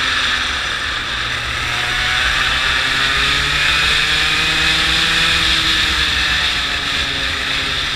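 Go-kart engine running hard as the kart laps the track, heard from on board. Its note drops a little about a second in, then climbs steadily for several seconds as the kart accelerates.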